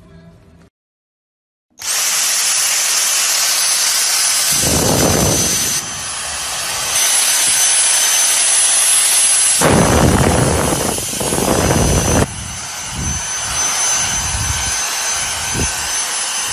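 Electric air-moving motor, like a vacuum cleaner or blower, running loud and steady: a rush of air with a thin high whine. It starts abruptly about two seconds in, with low rumbling bumps in the middle, as if the nozzle is being pawed and knocked.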